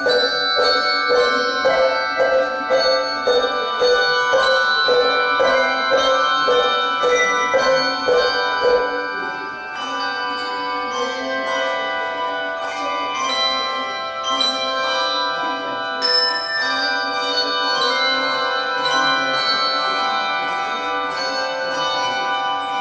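Handbell choir playing: many bells struck and left ringing in chords, with a low note repeated about twice a second for the first nine seconds or so, then longer sustained ringing chords.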